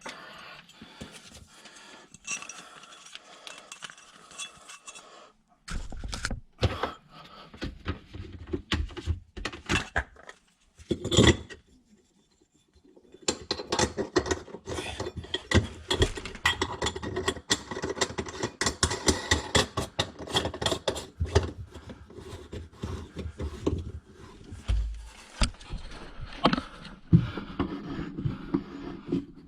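Kitchen sink drain parts being fitted and tightened by hand: short clicks, knocks and scrapes of plastic and metal pipework and nuts. A brief pause about halfway through, then steadier rapid clicking and scraping.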